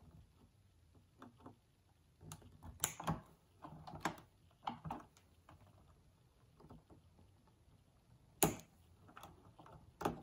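Side cutters snipping plastic cable ties on the wiring, with light clicks and rustles of the tool and wires being handled; a few sharp snaps, the sharpest about 8 seconds in.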